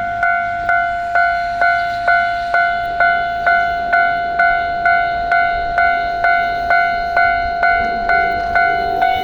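Japanese level-crossing warning bell ringing in a steady, even rhythm of about two strikes a second, each a clear, bell-like tone that decays quickly. It signals an approaching train.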